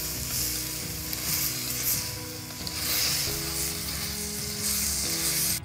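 Chicken pieces and garlic sizzling in a hot metal wok over a wood fire, being stirred and turned with chopsticks; the sizzle swells and eases as the pieces are tossed. Background music plays underneath.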